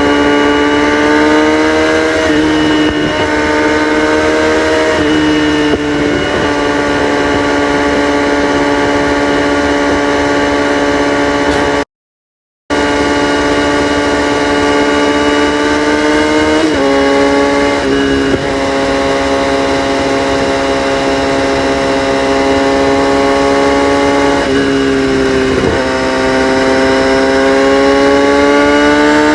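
Kawasaki ZX-6R inline-four with its catalytic converters deleted, running at high revs under way. It gives a steady high-pitched exhaust note that dips briefly a few times, as at gear changes, and climbs slowly near the end.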